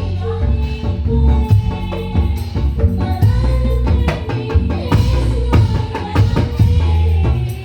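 Javanese patrol music (patrolan): an ensemble of bamboo slit drums and drums plays a fast, busy rhythm with a heavy bass beat, and a sustained melody line runs over it.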